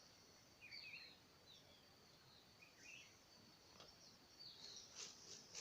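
Faint forest ambience: a few short, faint bird chirps over a steady high insect buzz.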